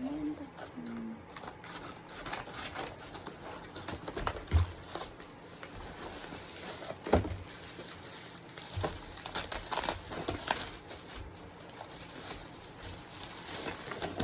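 Packaging from a mailed parcel being handled and opened by hand: irregular rustling and crinkling, with two louder knocks about four and seven seconds in.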